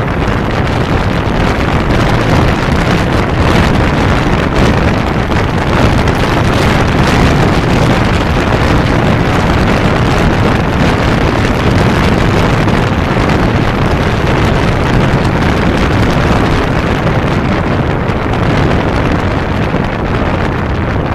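Steady wind rush on the microphone of a motorcycle riding at motorway speed, over the running of a 1992 Kawasaki Zephyr 550's air-cooled inline-four engine.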